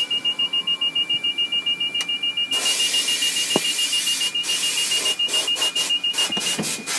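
Cockpit electronic warning beeper sounding a rapid beep, about six a second, over a steady high tone. About two and a half seconds in, a loud rushing hiss joins and becomes choppy. Both stop about a second before the end.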